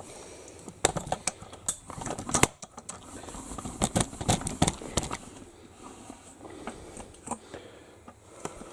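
Irregular clicks, knocks and rustling of objects being handled, busiest in the first half and sparser toward the end.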